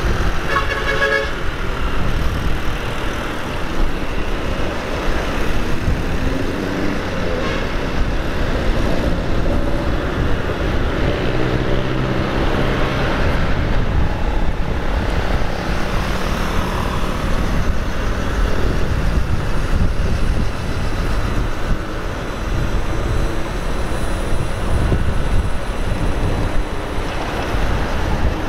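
Motorcycle riding in heavy city traffic: steady engine, road and wind noise, with a vehicle horn tooting briefly about a second in.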